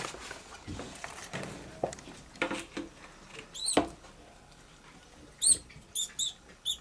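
A live white mouse squeaking while held up in feeding tongs: short, high squeaks, one about halfway through and four in quick succession near the end. Some knocking and rustling comes before them.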